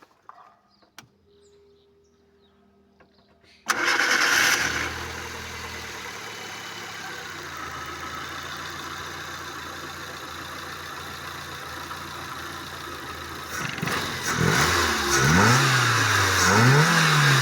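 Fiat Uno engine cranked and started after piston-knock (detonation) repair, catching about four seconds in and settling to a steady idle. Near the end it is revved twice, each rev rising and falling, running the way it should.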